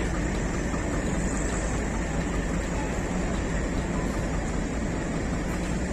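Diesel locomotive engine running steadily, a low rumble under an even noise, with no change in pitch or level.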